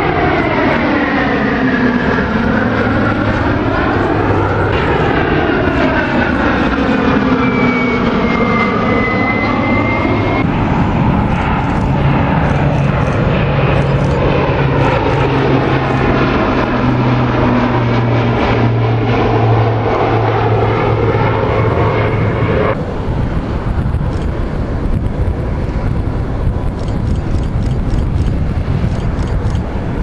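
Douglas DC-3's twin radial piston engines and propellers droning steadily as it flies past, the tone sweeping and phasing as the aircraft moves overhead. About 23 seconds in, the engine note drops back into a more even rushing noise.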